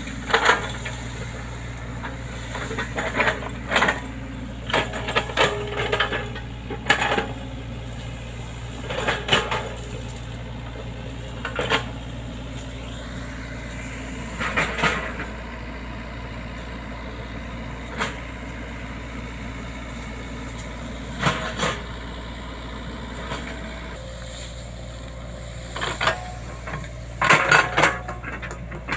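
Excavator diesel engine running steadily under work, with irregular metallic clanks and knocks from the bucket and arm as it digs and places soil, several in quick succession near the end.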